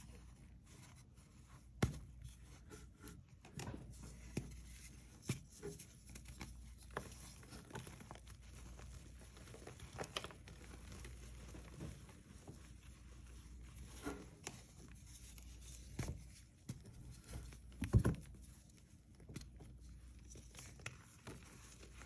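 Soft reformed cornstarch blocks, dusted with holi powder, being crushed and squeezed by hand: an irregular run of soft crunches and crumbling. The sharpest crunches come about two seconds in and again near eighteen seconds.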